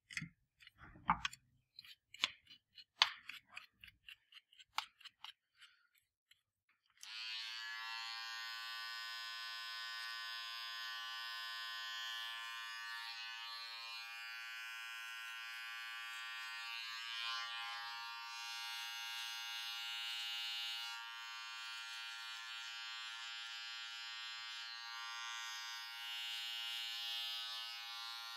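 A series of sharp taps and clicks, then about seven seconds in a small handheld electric device switches on and buzzes steadily.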